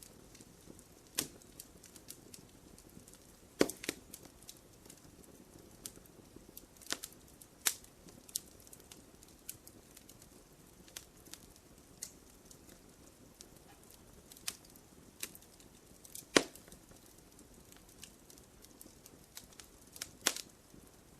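Wood fire crackling in a fireplace: irregular small snaps and pops over a faint hiss, with a few louder pops scattered through, the loudest about sixteen seconds in.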